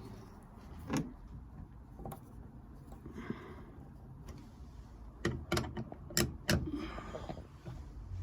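Sharp clicks and knocks from hands and tools working at a Morris Minor's door and door trim, with a quick cluster of them about five to six and a half seconds in.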